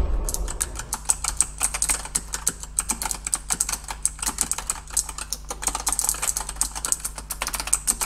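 Fast typing on a Razer Huntsman Elite keyboard with purple optomechanical switches, which are clicky: a dense, steady run of sharp key clicks, several a second.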